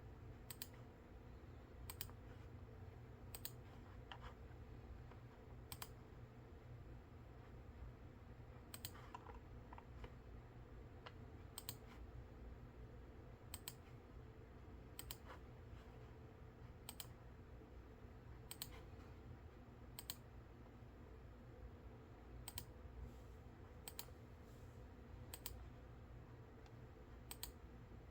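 Quiet, sparse clicks from computer controls, one every second or two, sometimes a few closer together, over a faint steady hum.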